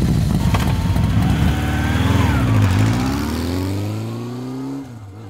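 Motorcycle engine revving: a loud rough rumble, then the pitch dips and climbs steadily for about two seconds before dropping away near the end.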